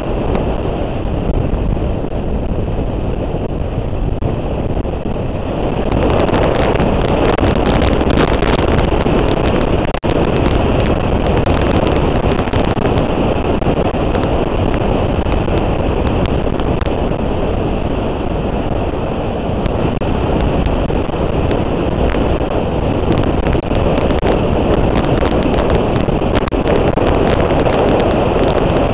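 Motorcycle riding at speed, its engine noise buried in heavy wind noise on the microphone, getting louder about six seconds in.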